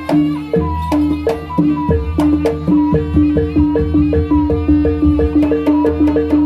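Javanese jaranan (kuda kepang) accompaniment music: gamelan-style percussion keeps a fast, even beat of about three strokes a second over repeating pitched notes and a steady low drone.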